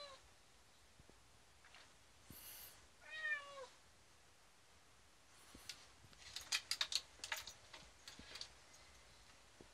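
Cat meowing: the end of one meow right at the start, and a longer meow about three seconds in that drops in pitch at its close. From about five and a half seconds a run of quick sharp clicks and scrabbles follows as its claws catch on the window glass and frame while it climbs up.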